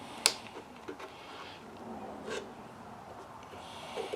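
A sharp click, then a softer one about two seconds later, with faint handling rattle in between, as the plastic handle parts of a Stihl BG85 leaf blower are pulled apart by hand.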